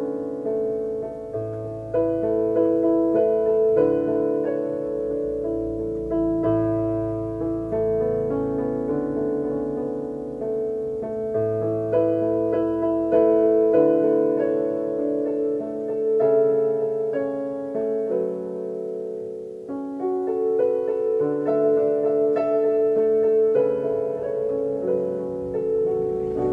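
Portable electronic keyboard played with a piano voice: held chords over low bass notes that change every second or two, with a melody on top.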